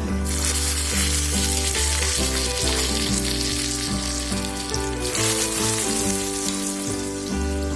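Hot oil tempering with mustard seeds, cumin, curry leaves and crushed garlic tipped into boiling rasam. The sizzling starts suddenly as it hits and surges again about five seconds in. Instrumental background music plays throughout.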